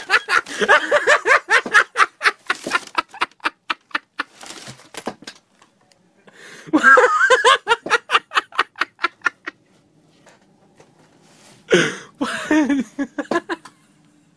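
A man laughing hard in three bouts of rapid, pulsing laughter, the last one shorter.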